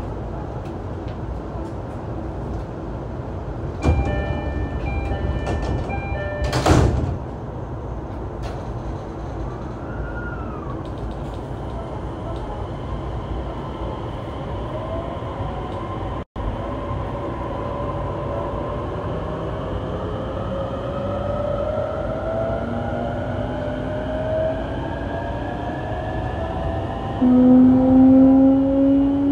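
Inside a motor car of an E233-3000 series EMU: a door chime sounds and the sliding doors shut with a thud. The train then pulls away, and its Hitachi IGBT-VVVF inverter and MT75 traction motors whine in several tones that rise steadily in pitch as it accelerates.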